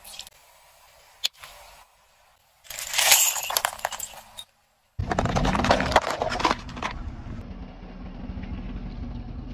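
A car tyre rolling over and crushing small objects. About three seconds in there is a loud burst of crunching and snapping as sticks of chalk are crushed. From halfway on there is a steady low rumble of the tyre with dense crackling as it rolls over a pile of water beads.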